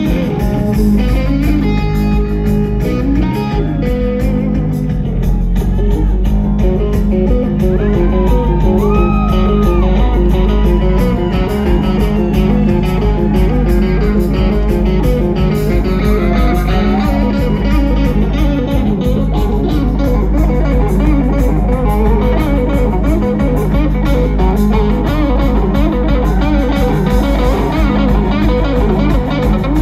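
Live electric guitar solo on a Les Paul-style guitar through stage amplifiers: sustained, bent lead notes over a steady low drone, with no drums.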